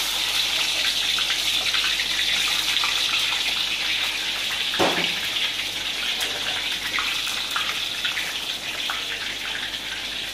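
French fries deep-frying in hot oil in a wok, just dropped in: a steady loud sizzle with crackling that eases slightly toward the end, and a single knock about halfway through.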